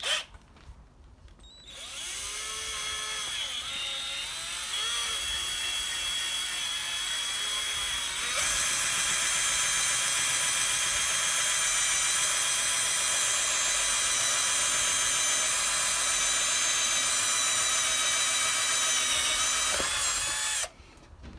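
Small electric drill with a 22 mm hole saw running, a steady motor whine that starts about two seconds in. It gets louder about eight seconds in and stops abruptly near the end.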